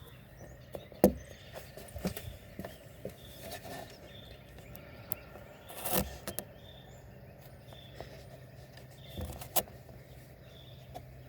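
Scattered knocks and clicks of tools and objects being handled, the sharpest about a second in and another around six seconds in, over a faint steady low hum.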